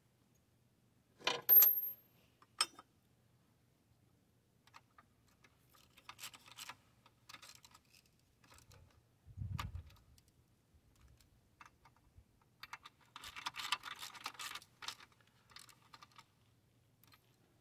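Small metallic clicks and rattles of a hand tool working at the track-tensioner fitting on a mini excavator's steel track frame, in scattered bursts, with a dull low thump about halfway through.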